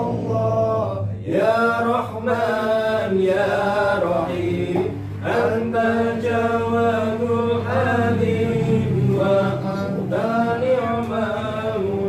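Men's voices chanting an Islamic prayer to a drawn-out melody, holding long notes that bend in pitch, with brief breaks for breath.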